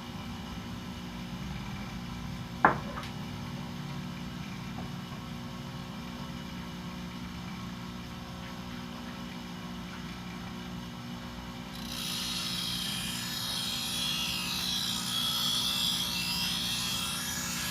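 Bench grinder motor running with a steady hum, with one sharp click a few seconds in. About two-thirds of the way through, a thickness planer blade is pressed to the grinding wheel and a rasping grinding hiss starts.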